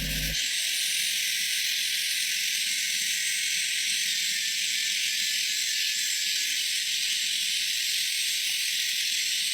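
Steady high-pitched hiss, even and unbroken.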